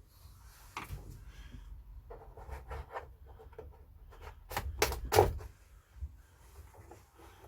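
Plastic retaining pegs of an all-in-one computer's back cover clicking as the cover is pried off with a plastic pry tool, with rustling plastic handling. One sharp click about a second in, then a quick run of three or four louder clicks around the five-second mark.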